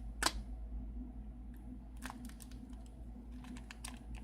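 Plastic protective film being handled and peeled off a replacement phone screen: one sharp click just after the start, then scattered small crinkles and clicks.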